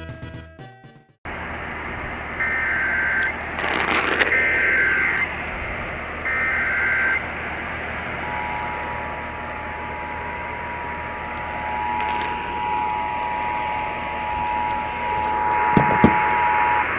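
Emergency Alert System broadcast heard over radio with steady static: three short bursts of SAME header data, then the EAS two-tone attention signal held for about eight seconds before it cuts off. Together they herald a flash flood warning.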